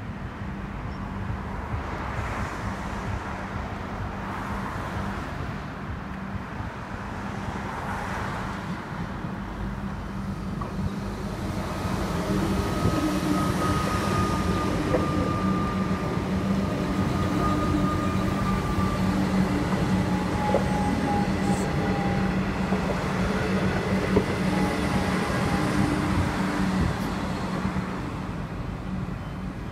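Comeng electric suburban train passing on the rail line, with the rumble of wheels on track under a whining traction-motor hum. It gets louder about a third of the way in as the train goes by and eases off near the end.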